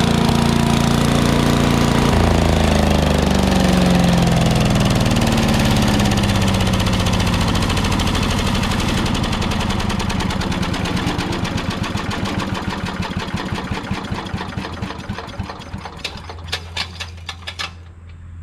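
Old Craftsman chipper shredder's 8 hp Briggs & Stratton single-cylinder engine running warm, then shut off about two seconds in. It winds down slowly, its pitch falling and its chugs spacing out over about fifteen seconds as the rotor coasts, until it stops near the end.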